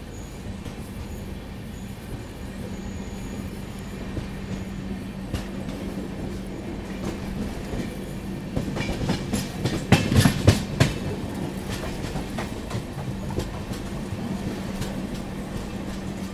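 Rajdhani Express train running along the track: a steady rumble with a constant hum, and a rapid cluster of wheel clacks over rail joints or points about nine to eleven seconds in, the loudest moment.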